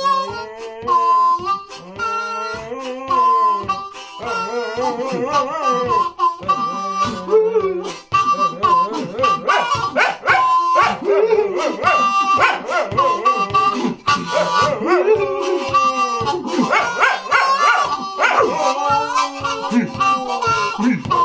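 A harmonica played in a steady rhythm of blues chords while a dog howls along, its howls sliding up and down in pitch.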